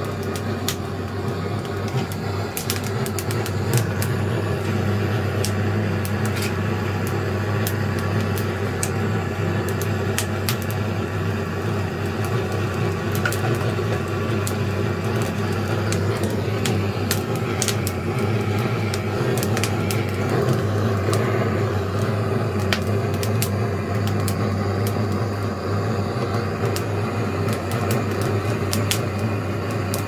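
Wood fire burning, with frequent irregular crackles and pops over a steady low rumble.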